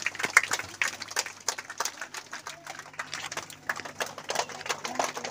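Scattered hand clapping from a crowd over faint background chatter, with a low steady hum underneath.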